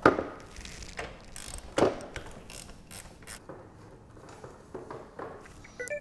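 A ratchet with a 5/8 spark plug socket clicking in short spells as it loosens and backs the spark plug out of a GY6 scooter engine's cylinder head. There are sharp clicks at the start and again about two seconds in, with lighter ticks between.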